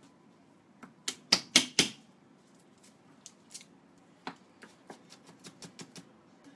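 Chef's knife chopping garlic cloves on a wooden cutting board. There are four hard knocks a little over a second in, then a run of lighter, quicker taps at about four a second.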